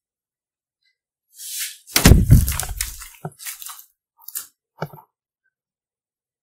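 Clear slime mixed with glitter and beads being squished and pressed by hand: a short hiss, then a loud squelch about two seconds in, followed by a few short crackles and pops from the beads.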